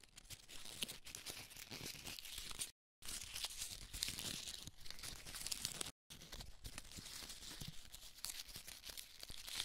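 Paper rustling and crinkling in a dense run of small crackles, as rolled paper scrolls are unrolled and laid flat; it cuts out completely for a moment twice.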